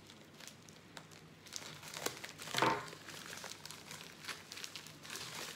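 A white mailing envelope crinkling and rustling as it is cut open with scissors and handled, with scattered small clicks. The loudest rustle comes about two and a half seconds in.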